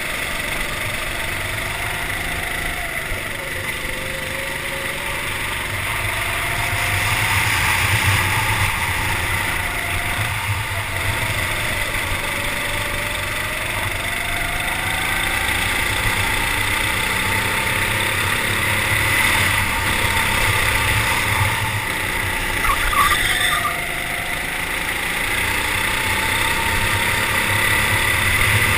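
Go-kart engine heard from on board while lapping, its pitch rising and falling as it revs up on the straights and drops off into the corners, with wind rushing over the microphone.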